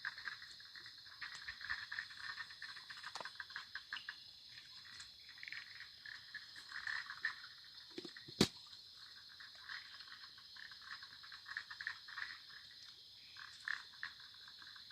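Faint chorus of frogs calling in quick uneven pulses over a steady high insect drone, with a single sharp click about eight seconds in.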